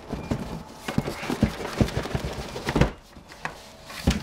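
Cardboard boxes being handled on a wooden floor: a string of knocks, taps and scrapes as the model's box is worked out of its shipping carton, with the loudest knock about three seconds in.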